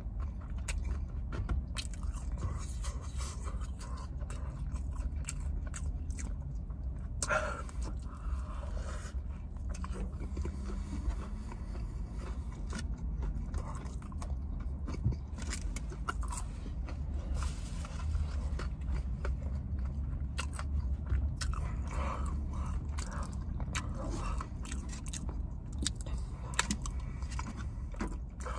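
A person chewing and biting food close to the microphone, fries and mac and cheese, with short wet mouth clicks and a fork scraping on a tray, over a steady low hum.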